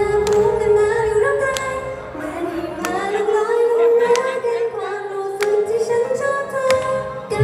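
Idol pop song with a girl group singing the melody together in unison over a backing track with a regular beat. The bass drops out after about two seconds and comes back in hard at the very end.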